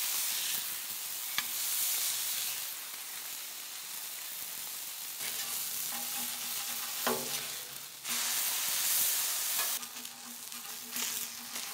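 Burger patties and bacon sizzling on the hot steel top of a Weber Slate propane griddle, a steady frying hiss. A metal spatula knocks sharply against the griddle a couple of times.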